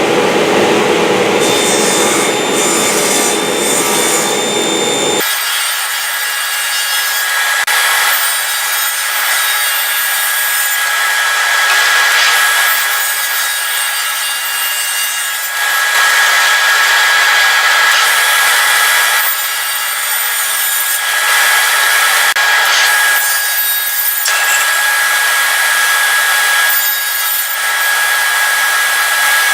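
Power saw running and cutting wood, a steady motor whine with the noise of the blade changing every few seconds as cuts are made.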